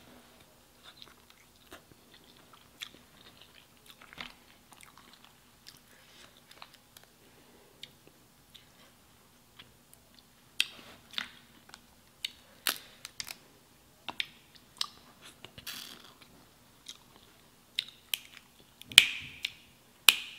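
Close-miked chewing and wet mouth clicks of crab meat being eaten, with crackles and snaps of crab shell being picked apart by hand. The clicks are soft and sparse at first and come louder and more often from about halfway, the loudest near the end.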